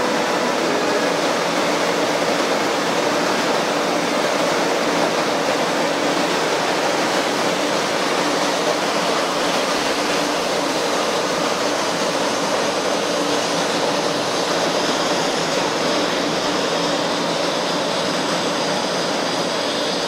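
500 series Shinkansen pulling out of the station: a steady, loud rush of train running noise with a faint motor hum, no clear peaks.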